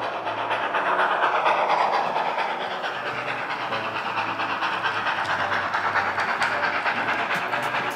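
H0-scale model of the ÖBB class 52 steam locomotive running past, with a steam chuffing and hissing sound and its wheels clicking over the track. A falling tone glides down about one to three seconds in.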